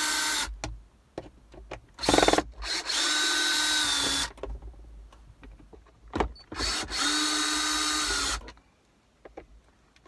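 DeWalt 20V cordless drill backing out screws from a plastic armrest lid. Its motor whines steadily in three short runs, with clicks and handling noise in the pauses between them.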